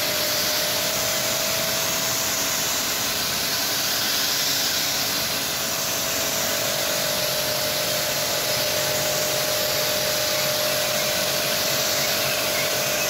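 Cobra C1550F electric high-pressure washer running with its spray trigger held, the motor giving a steady whine under the hiss of the high-pressure water jet blasting thick dried-on dirt loose. The pump only runs while the trigger is pressed.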